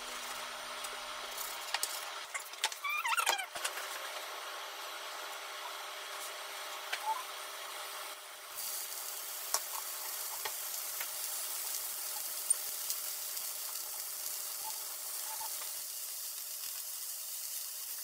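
A kitchen knife slicing through bacon-wrapped rolls on a cutting board, scraping and knocking, busiest about three seconds in. From about eight and a half seconds in a steady hiss of the pieces frying in a hot pan, with a few light clicks as more pieces are set in.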